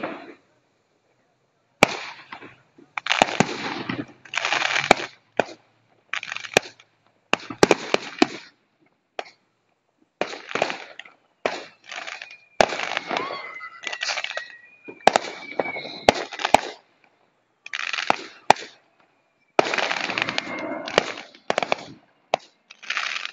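Aerial fireworks going off in quick succession: sharp bangs, each followed by a short crackle, with a thin whistling tone sliding down in pitch about halfway through.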